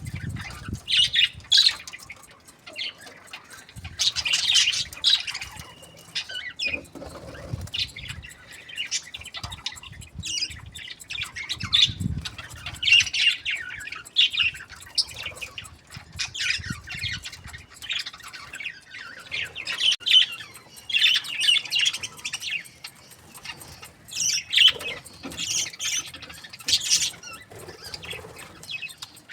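A group of budgerigars chirping and squawking in short, irregular bursts, many calls overlapping.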